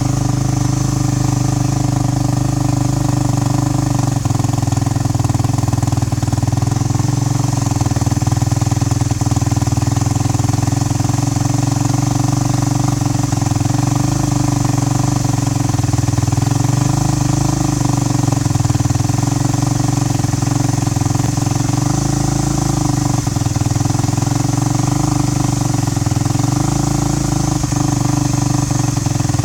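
2012 Kawasaki KX450F's single-cylinder four-stroke engine idling steadily, with only slight wavering, on its first heat cycle after a top-end rebuild.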